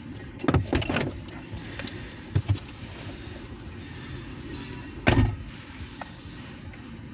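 A train of loaded tank cars rolling slowly past, heard from inside a car: a steady low rumble broken by several sharp knocks and clanks, the loudest about five seconds in.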